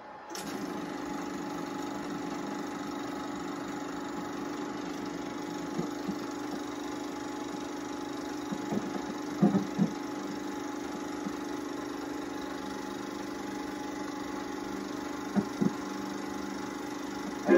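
Film projector switching on about a split second in and running steadily, a mechanical hum with a few sharp pops around the middle and near the end, while blank leader runs through before the picture starts.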